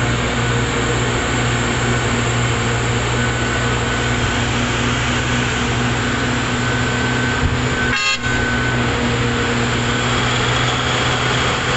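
Heavy diesel engines of a Hitachi EX-series hydraulic mining excavator and a Cat 777D haul truck run steadily with a deep drone while the excavator loads the truck. There is a brief break in the sound about eight seconds in.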